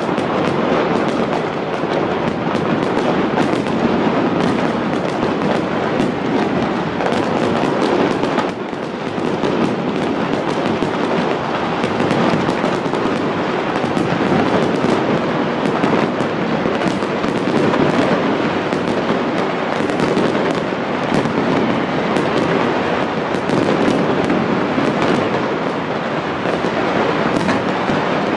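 A fireworks display: a dense, unbroken barrage of overlapping bangs and crackle, with a brief dip about eight seconds in.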